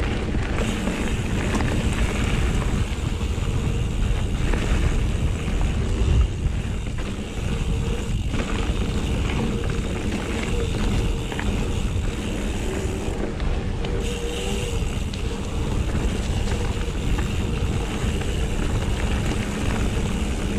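Mountain bike rolling along a dirt trail: tyres rumbling and rattling over the ground, with wind buffeting the microphone.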